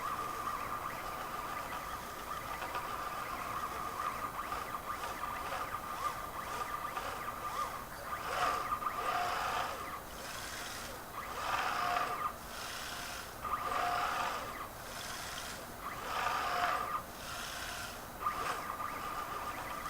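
Stepper motors of a RepRap Prusa 3D printer whining at a steady pitch as the axes move. In the second half, louder, rougher passages of a second or so come about every two to three seconds.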